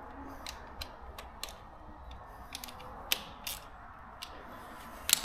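Scattered clicks and taps of tools and metal parts being handled during motorbike repair work, irregularly spaced, with a sharper knock about three seconds in and another near the end.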